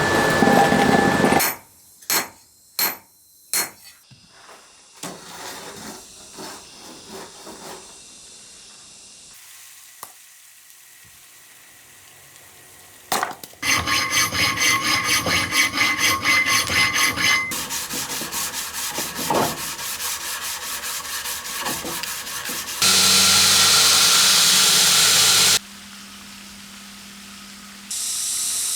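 A series of short knife-making workshop sounds: a few sharp knocks near the start, then rapid rasping metalwork strokes, about four a second, and later a steady hissing noise that starts and stops abruptly.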